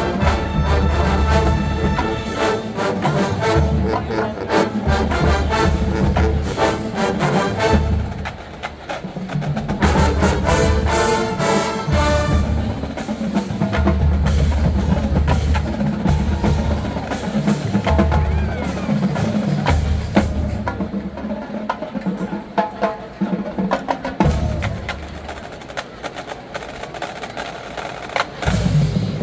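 College marching band playing: brass over a drumline of snare rolls, bass drum hits and rim clicks. After about twelve seconds the brass mostly falls away, leaving the percussion section playing on its own.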